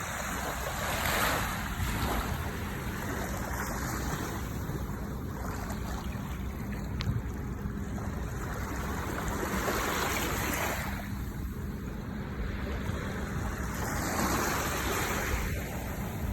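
Ocean waves washing onto a beach, a continuous surf hiss that swells three times as waves break and run up, with a steady low rumble underneath.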